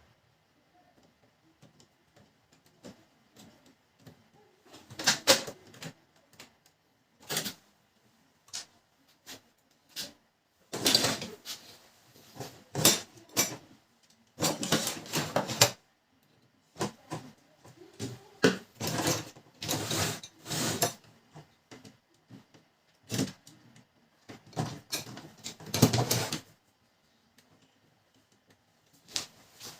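Irregular clicks, knocks and scraping as laser-printer parts are handled and fitted together during reassembly after a fuser unit replacement, with quiet gaps between.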